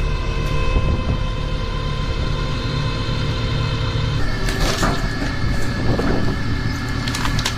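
Hydraulic log-splitting machine running with a steady low rumble and hum, its tone changing about four seconds in, with several sharp cracks in the second half.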